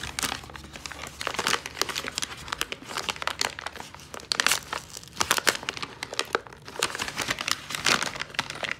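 Brown paper mailer crinkling and rustling in the hands as it is gripped and turned over, with many irregular crackles throughout.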